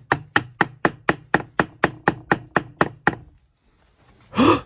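Wooden mallet beating on a vintage Ratner steel safe door next to its handle: about a dozen quick knocks, roughly four a second. They stop a little after three seconds, and a brief loud rasping noise follows near the end.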